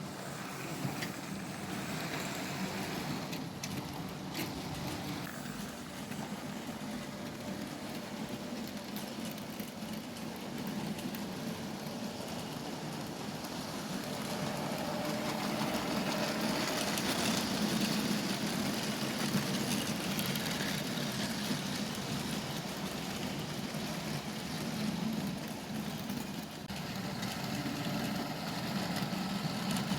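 Model trains running on a layout: steady whirr of the locomotives' electric motors with the rumble of wheels on the track, growing louder about halfway through as they pass close.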